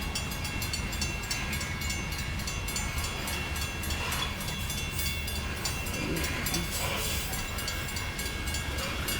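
Loaded coal train of 130 cars rolling slowly past: a steady low rumble of wheels on rail, with a faint steady high whine above it.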